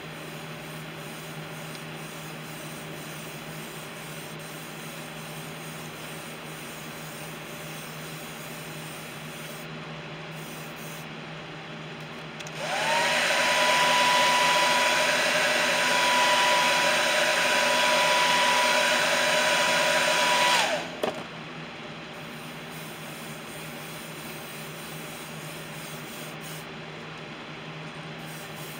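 Iwata airbrush spraying paint in one long burst of about eight seconds, a loud steady hiss with a whistling tone, starting and stopping abruptly a little under halfway in. A steady background hum runs underneath throughout.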